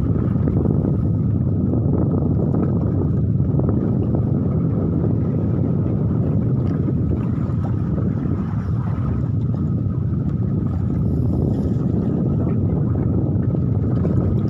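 Steady low rumble of wind buffeting the microphone over open water, with a faint steady high whine running under it.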